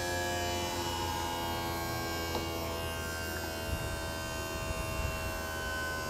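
The motorhome's hydraulic leveling jack system running with a steady hum and whine as a jack is lowered onto a rubber jack pad, with a couple of faint clicks near the middle.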